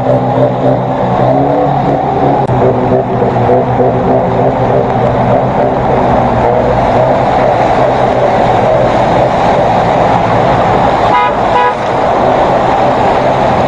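Vehicles driving through deep floodwater: an engine running under a steady wash of churned water. There is a brief car horn toot about eleven seconds in.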